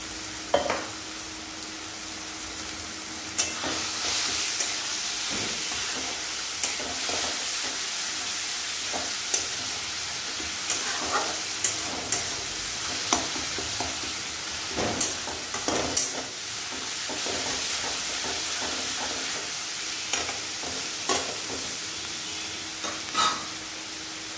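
Onion-tomato masala sizzling in oil in a metal kadai as it is stirred, with a steady frying hiss and a spatula scraping and knocking against the pan at irregular moments.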